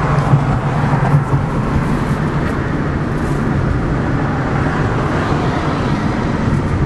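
Steady cabin noise of a car on the road: a constant low engine hum under a broad rumble.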